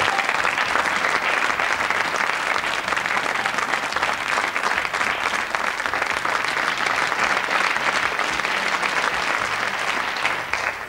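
Studio audience applauding steadily, with the clapping fading out near the end.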